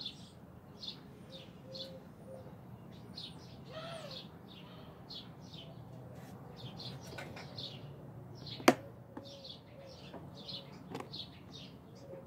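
Small birds chirping repeatedly, about two to three short high chirps a second, over a soft low cooing in short groups. One sharp click about eight and a half seconds in.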